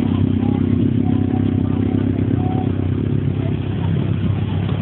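Motorcycle engines running steadily, a loud low drone with no revving.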